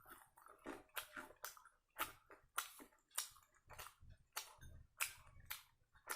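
Wet chewing and lip smacking of someone eating sambar-soaked vada, with short smacks coming about two to three times a second.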